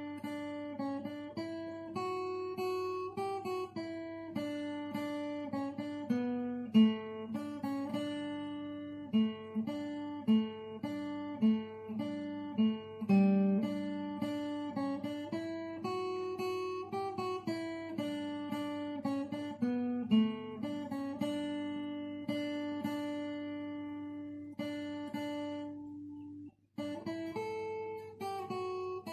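Acoustic guitar played solo, a melody of plucked notes over a ringing lower note. It stops briefly near the end, then starts again.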